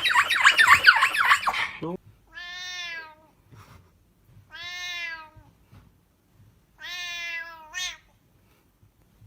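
A loud, high, rapidly wavering squealing noise cuts off about two seconds in. Then a cat meows three times, each meow long and drawn out, about two seconds apart.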